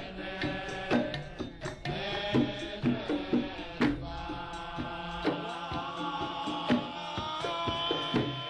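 Background music: a melody with chant-like tones over hand-drum percussion.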